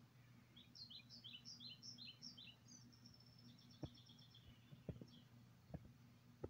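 Faint birdsong from a nature video playing on a laptop: a run of about eight quick, falling chirps, then higher twittering, over a low steady hum. A few sharp clicks come in the second half.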